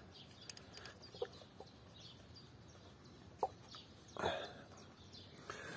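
Faint plastic clicks and knocks as a hand presses the Peugeot 407's ignition coil pack into place on the engine with the engine off, with a brief louder scuff about four seconds in.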